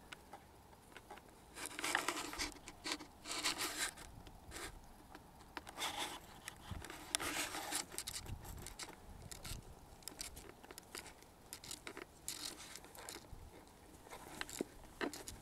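Intermittent rustling and scraping in short, irregular bursts: clothing and dry grass and bramble stems brushed as someone moves about through the undergrowth.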